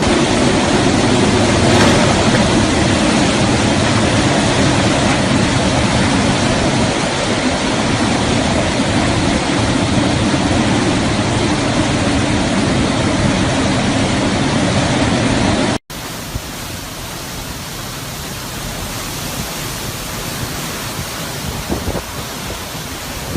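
Steady noise of hurricane wind and rain. After a sudden cut about two-thirds of the way through, it continues quieter.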